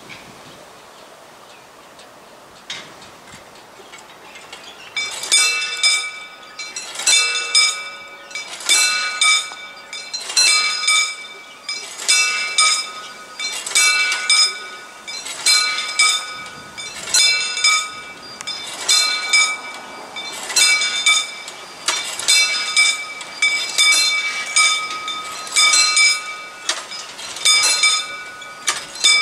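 Mechanical warning bells on the barrier drives of a hand-cranked railroad crossing ringing in quick, uneven clusters of strokes, about one cluster a second, starting about five seconds in. They give warning that the barriers are about to be lowered.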